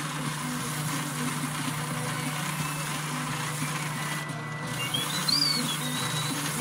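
A small power tool with an abrasive disc running steadily, a continuous whirr and hiss. About two-thirds through the hiss drops away for a moment, and then a short whistle-like squeak rises and falls.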